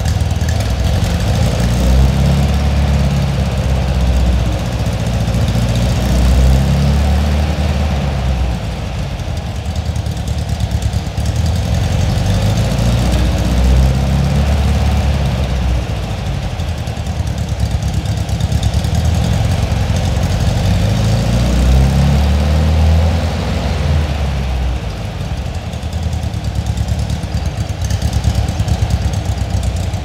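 Air-cooled VW flat-four engine with twin carburettors running near idle through a stainless-steel Abarth exhaust with quad tailpipes. Its low exhaust note swells and eases a few times.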